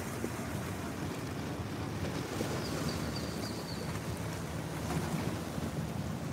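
Wind buffeting the microphone over choppy water lapping and splashing against the rocks of a seawall.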